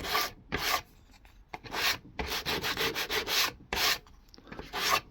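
A small cut-out piece of thin plywood rubbed back and forth on a sheet of sandpaper laid flat on a table, a series of short rasping strokes with brief pauses between them, as each edge is sanded down toward the cut line.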